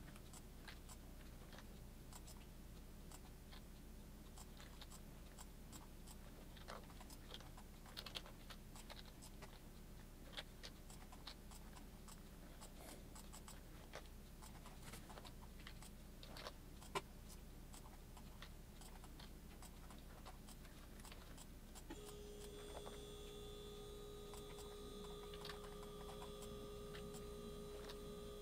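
Faint, scattered clicks of a computer keyboard and mouse being used at a desk. About 22 seconds in, a faint steady tone comes in underneath.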